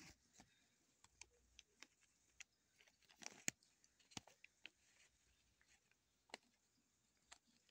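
Faint rustling of a bedsheet and scattered light clicks as a hand moves small objects over it. The loudest moment is a short rustle ending in a sharp click about three and a half seconds in.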